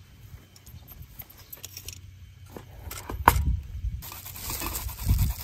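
A kitchen knife cutting limes on a plastic cutting board: light clicks and one sharp knock about three seconds in. From about four seconds in, fresh ginger is rubbed on a hand grater, a steady scraping hiss.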